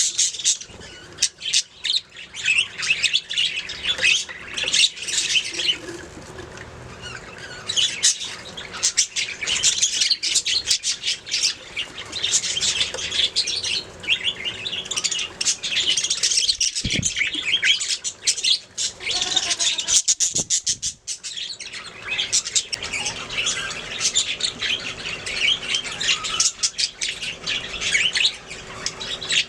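Budgerigars chirping and warbling nonstop, many rapid overlapping high chirps and squawks from several birds at once.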